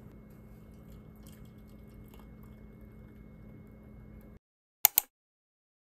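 Faint steady room hum with a few light ticks, which cuts off suddenly; about a second later come two sharp, loud clicks in quick succession.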